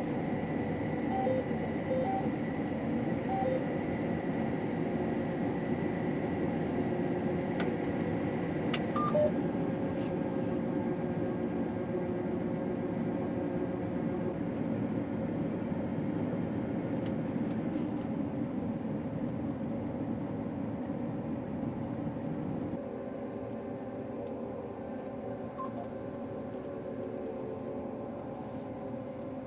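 Combine harvester running steadily, with a few short beeps near the start. About two-thirds of the way in the level drops a little and the running settles into a steadier hum.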